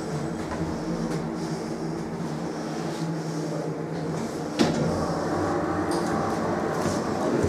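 Machine-room-less traction elevator running: a steady hum with a low drone, broken by a single sharp clunk about four and a half seconds in.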